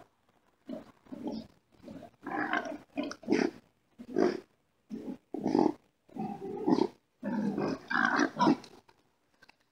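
Wild boars calling in a string of short, loud bursts, one after another for about eight seconds, as two boars fight.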